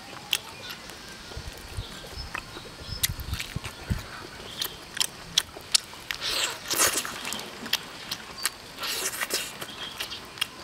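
Close-up eating sounds from braised three-cup chicken eaten by hand: wet chewing and lip smacks with many sharp clicks, and two longer, noisier stretches about six and nine seconds in as the meat is torn and bitten.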